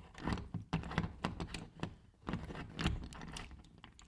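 Irregular light clicks and knocks of metal as a chrome bar mixer shower valve is worked loose by hand and lifted off its threaded wall connectors.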